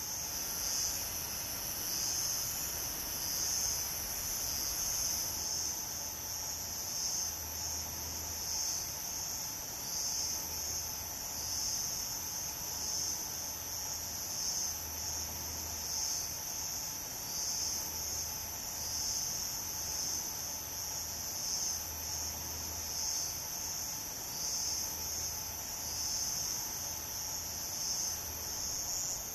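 A steady, high-pitched chorus of many insects singing together, running on without a break and swelling gently about once a second.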